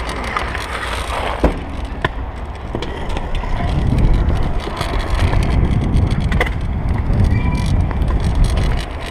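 Stunt scooter wheels rolling over a concrete skatepark surface: a steady rumble that grows louder about three and a half seconds in, with a few sharp clicks and knocks.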